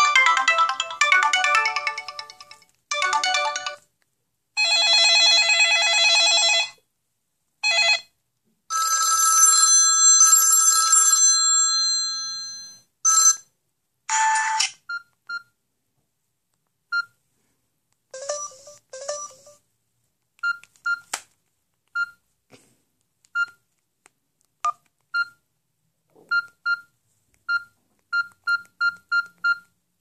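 A Samsung GT-B3310 mobile phone's built-in message and ring tones played one after another through its small speaker, each cut off after one to a few seconds. In the second half, a run of brief single beeps that come faster near the end.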